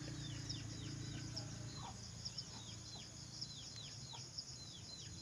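Birds chirping: short, thin calls that fall in pitch, about two a second, over a low steady hum.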